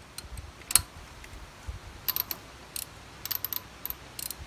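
Ratchet wrench on a deep 14 mm socket and extension, clicking in short quick runs as it is swung back and forth to break loose and back out a spark plug, after one sharp click about a second in.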